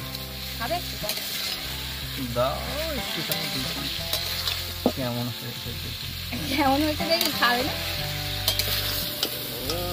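Meat and potatoes sizzling in a metal wok over a wood fire, stirred by a metal spatula that scrapes and clicks against the pan.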